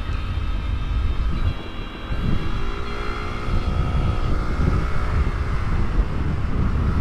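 Motorcycle engine running under way, its pitch rising a few seconds in as it revs up, over a heavy low wind rumble on the microphone.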